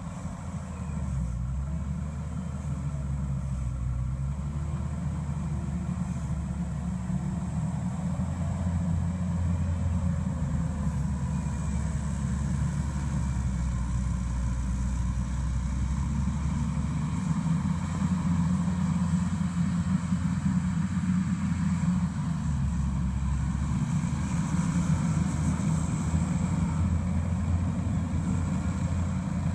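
Mustang MTL325 compact track loader's diesel engine running steadily under load as the machine pushes dirt, getting louder about a second in.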